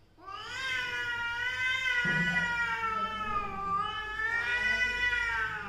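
A cat's long, drawn-out yowl, one unbroken call of about five seconds whose pitch wavers slowly up and down: a hostile warning cry in a standoff between two cats.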